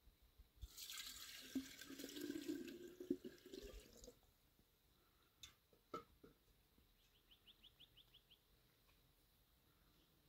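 Water pouring and splashing for about three seconds, with a low tone rising in pitch beneath it. Then two faint knocks, and near the end a short fast run of faint ticks.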